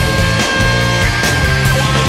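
Pop-rock song recording: the full band plays with electric guitar, bass and drums, and a long held high note sounds over the first part.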